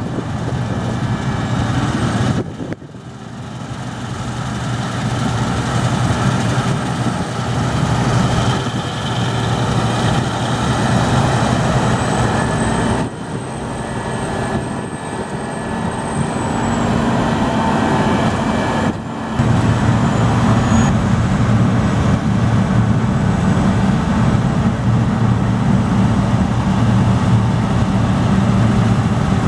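Combine harvesters running while cutting wheat, among them a tracked Claas Lexion: a steady, loud engine and threshing drone with a faint high whine above it. The sound changes abruptly three times, at edits between shots, and is loudest in the last third as the Lexion passes close.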